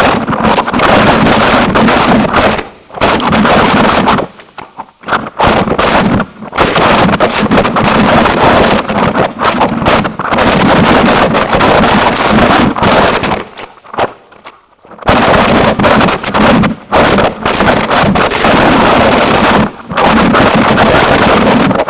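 Harsh noise music: a loud, dense wall of distorted noise filling the whole range, crackling and churning. It breaks off abruptly into near-silent gaps a few times, once in a choppy stretch of stop-start blasts and once for about a second and a half.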